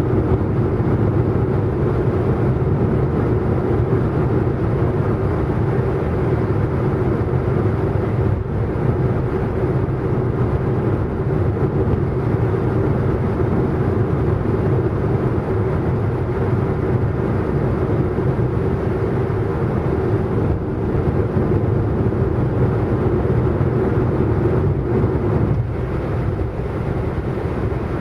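Car driving steadily at speed: a constant drone of engine and road noise with a steady hum, holding at one pitch without revving up or down.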